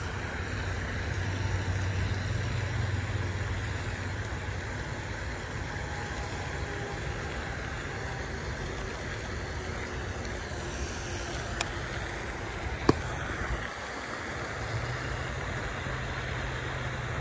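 Steady rushing water noise of a pond fountain splashing, with two sharp clicks a little over a second apart about twelve seconds in.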